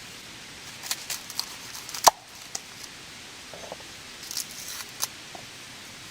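Steady rain hiss broken by two clusters of sharp clicks and snaps, the loudest a single crack about two seconds in, the second cluster around four to five seconds in.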